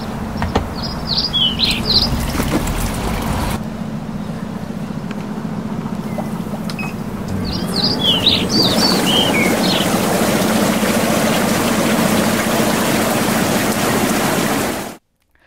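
Birds chirping over a steady low hum, then from about eight seconds in the loud, even rush of water bubbling and churning in an Intex PureSpa inflatable hot tub with its massage system running. The rush cuts off suddenly near the end.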